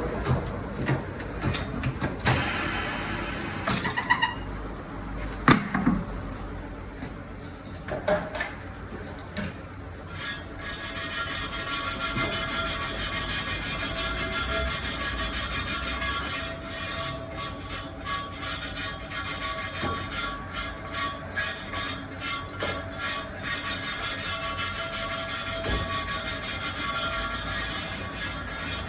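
Tyre-change work with air tools and machinery: scattered metal clanks and knocks and a brief hiss of air, then from about ten seconds in a machine running steadily with rapid pulsing.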